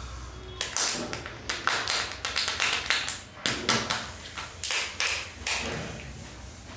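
Kinder Joy egg's thin foil wrapper crinkling and tearing as it is peeled off by hand: a quick run of sharp crackles with short breaks, starting about half a second in and easing off near the end.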